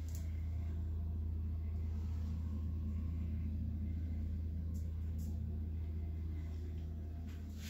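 A steady low electrical hum.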